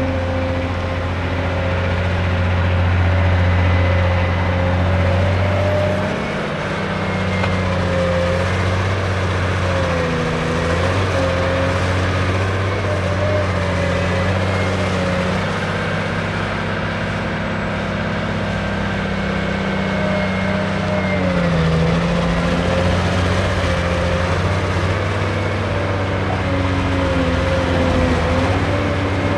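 Cat 385C LME hydraulic excavator's diesel engine running at working speed. Its note dips briefly and recovers several times as the machine digs and swings.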